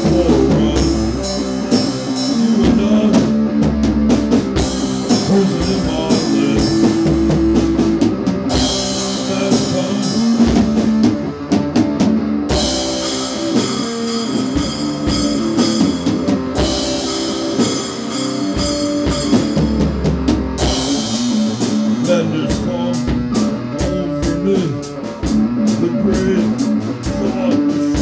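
Rock band playing an instrumental passage with no singing: guitar over a drum kit keeping a steady beat.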